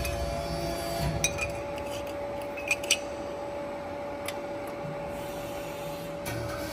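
CNC press brake's drive running with a steady hum between bend strokes. There are a few light clicks and taps at the start, about a second in and near three seconds in, as a small aluminum part is handled against the backgauge.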